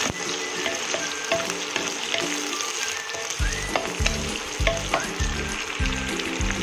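Sliced onion and garlic sizzling in hot oil in a wok, stirred with a wooden spatula that scrapes and clicks against the pan. Background music plays underneath, with a bass beat coming in about three and a half seconds in.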